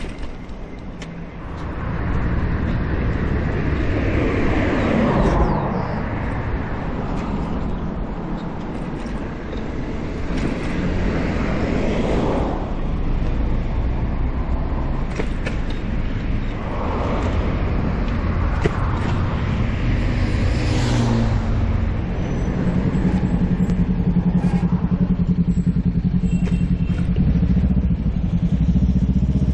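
City road traffic heard from a moving bicycle, with wind noise on the microphone. Several passing vehicles swell and fade in turn, and near the end a steady engine hum joins in.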